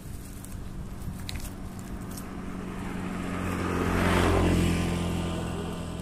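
A motor vehicle passing by: its engine hum grows louder, is loudest about four seconds in, then fades away.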